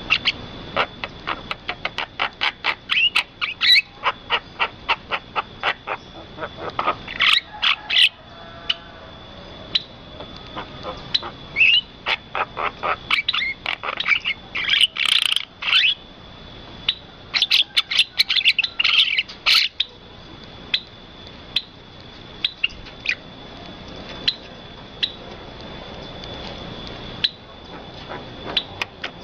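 Birds calling in quick runs of short, sharp chirps, with pauses between the runs, over a steady high-pitched tone.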